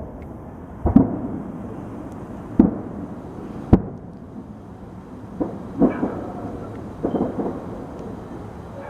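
Fireworks exploding: three separate sharp bangs in the first four seconds, then quicker runs of pops later on.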